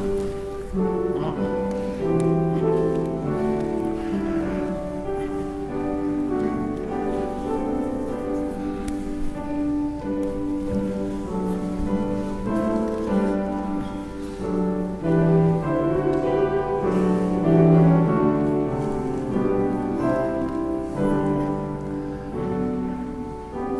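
Slow instrumental church music: sustained chords under a moving melody line, with notes held for a second or so at a time.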